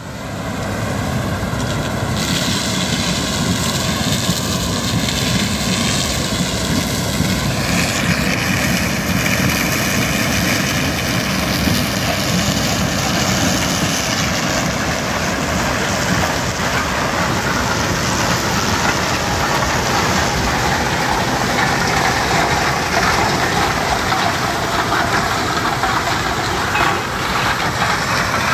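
Claas Lexion 780 TerraTrac combine harvester running under load while harvesting grain maize with its corn header: a loud, steady din of engine, threshing and crop intake. Its character changes about 2 and 8 seconds in.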